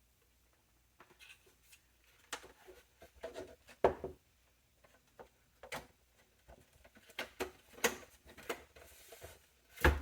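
Scattered clicks, taps and light knocks of hands handling computer parts and a small desktop PC case, with a sharper knock about four seconds in and another at the end.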